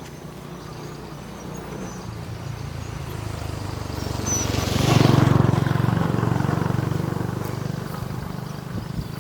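A motor vehicle passing by, its engine growing louder to a peak about five seconds in and then fading away.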